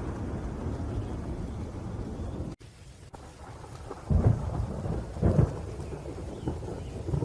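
Thunderstorm: rain falling under rolling thunder. A low rumble cuts off suddenly about two and a half seconds in, then two loud thunder claps follow about a second apart near the middle.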